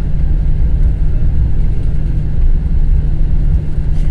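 Cabin noise of a Boeing 777-200ER taxiing: a steady low rumble from the engines at taxi power and the aircraft rolling along the taxiway, heard from inside the cabin.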